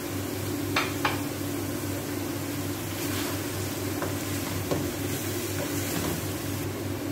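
Minced meat frying in oil with crushed ginger and garlic in an aluminium pan, sizzling as it is stirred with a wooden spatula, which knocks against the pan twice about a second in and a couple more times later. A steady low hum runs underneath.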